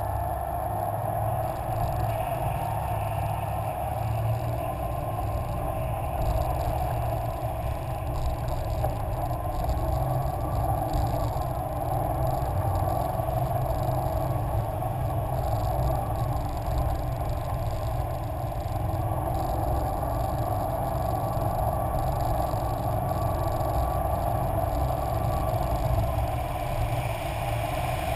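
Viksund 340 St. Cruz motor cruiser under way, its engine running steadily under a constant rush of water along the hull.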